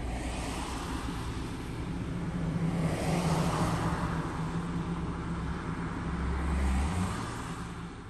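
Road traffic passing on a two-lane road, heard from inside a car: a steady road noise with a low hum, swelling as vehicles go by about three seconds in and again near the end.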